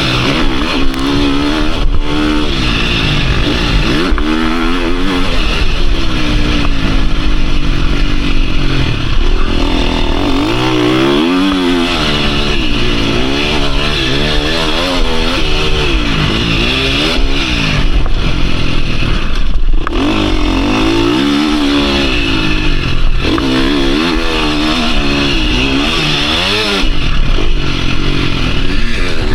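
KTM 350 SX-F four-stroke motocross engine under hard riding, revving up and dropping off over and over as the rider shifts and works the throttle through sand and jumps. It briefly cuts back around 4 and 20 seconds in.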